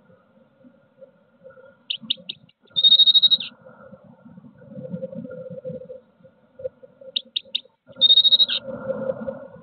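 Blue tit song, twice: each phrase is three short high notes followed by a trill of about a second, the second phrase about five seconds after the first. A low, uneven rumble runs underneath.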